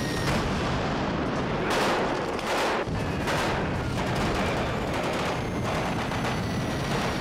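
Dense battle gunfire: many overlapping rifle and machine-gun shots with no break, and two heavier blasts about two seconds in.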